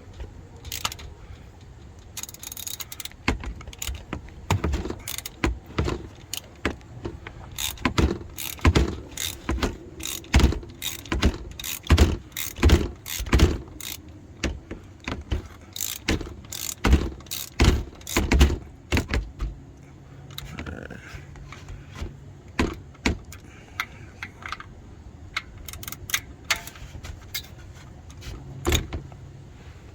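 Ratchet clicking in quick irregular runs as it tightens the oil filter housing cap through a cup-type cap wrench. The clicks are dense for the first two-thirds, then come only now and then.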